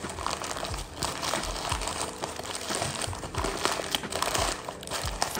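Paper wrapper of a Burger King Whopper crinkling and rustling as it is unfolded and pulled back from around the burger, a continuous run of crackles and small snaps.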